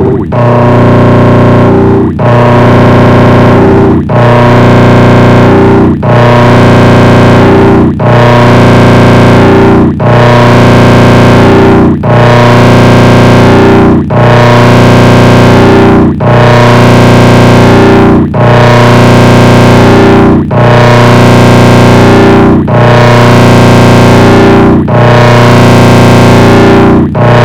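The 'Baba Booey' meme sound effect, layered on itself into a dense, heavily distorted and clipping drone of held tones. It restarts about every two seconds, with a brief dip in level at each restart.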